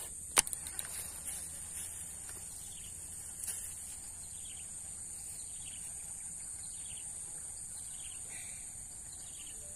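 Steady, high-pitched insect drone, with short falling chirps repeated about once a second. A sharp click comes just after the start, followed by a few fainter clicks.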